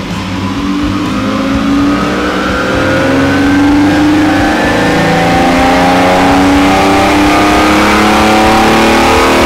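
Jaguar engine at full throttle on a rolling road dynamometer during a power run, pulling steadily up through the rev range with its pitch rising throughout.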